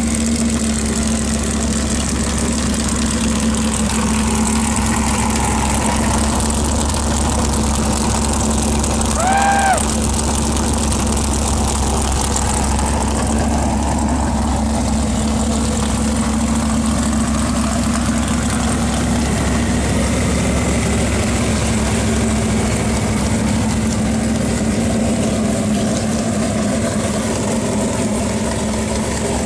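Built big-block Chevy V8 with a wild cam idling steadily through open side-exit exhaust, without revving. A brief higher-pitched chirp is heard about ten seconds in.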